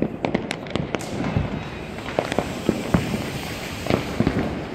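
Diwali firecrackers bursting all around: an irregular run of sharp cracks and bangs, several a second at times, with a few deeper thuds among them over a steady background crackle.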